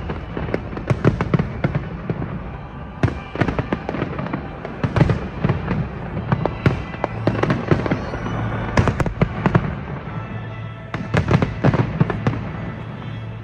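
A fireworks display going off in volleys of sharp bangs and crackles, clustered a second or two apart, with dense salvos about a second in, around three to five seconds, near nine seconds and again near the end.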